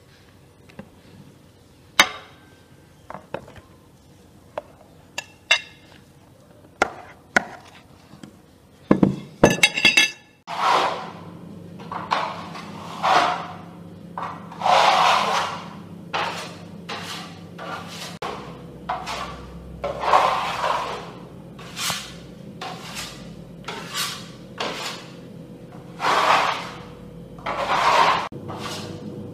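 Kitchen work: a few light clicks and knocks of utensils, then from about ten seconds in a long run of noisy strokes, roughly one a second, over a low steady hum.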